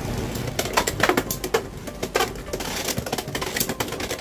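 Two Beyblade X spinning tops, Leone Claw and Weiss Tiger, spinning in a clear plastic stadium: a steady whir broken by many sharp, irregular clacks as the tops strike each other and the stadium walls.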